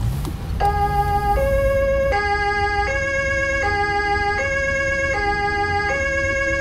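German police car's two-tone siren (Martinshorn) sounding, switching evenly between a high and a low tone about every three-quarters of a second, starting about half a second in. Beneath it the patrol car's engine rises in pitch at the start as the car accelerates away.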